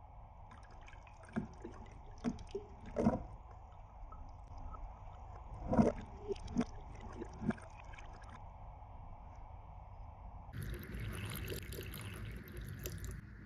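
Sparkling wine poured over ice into a wine glass, fizzing faintly, with scattered sharp clicks and cracks from the ice and glass. About ten seconds in, a thin stream of pomegranate juice pours into the glass with a steady splashing hiss for a few seconds.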